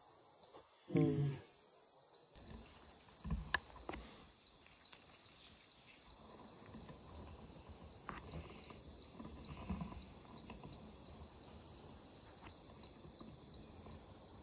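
Insects droning in a steady, high-pitched chorus. A brief low voice-like sound comes about a second in, and a few faint clicks follow.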